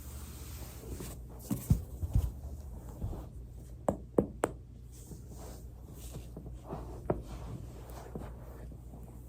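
Joints popping and cracking under the pressure of foam rolling. There are a few sharp cracks a couple of seconds in, three more in quick succession about halfway, and a single one later, over a low steady hum.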